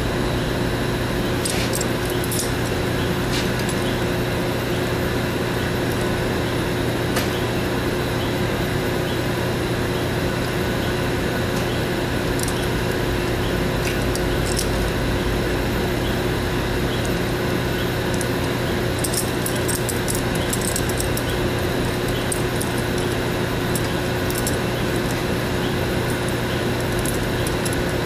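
Steady hum and hiss of running laboratory machinery, with scattered light metallic clicks, a small cluster of them about two-thirds of the way through, as a corkscrew is worked into a pipe fitting.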